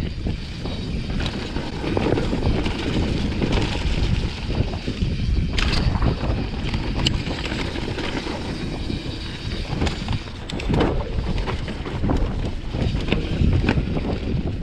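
Mountain bike riding fast down a dirt trail: steady wind buffeting the microphone over the rumble of tyres on dirt and rock, with scattered sharp clicks and knocks from the bike over bumps.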